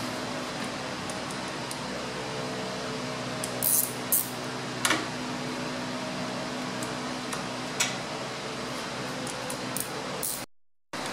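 Steady hum of a shop fan, with a few sharp clicks and clinks of tools and fittings being handled at the car's radiator support, the loudest a cluster about four to five seconds in. The sound cuts out briefly near the end.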